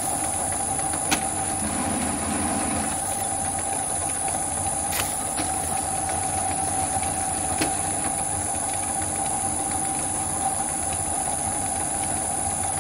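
Metal lathe running steadily with its spindle at about 336 rpm while the electronic lead screw's stepper drives the carriage through an automatic thread-cutting pass on a 2 mm pitch thread. A constant high whine sits over the even mechanical hum, with a few sharp clicks.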